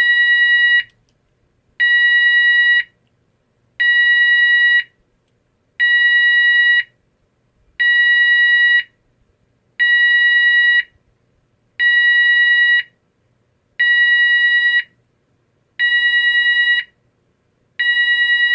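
GE AS363 alarm sounder sounding a 970 Hz intermittent tone, about one second on and one second off, ten beeps in all. This is the Apollo fire system's alert tone.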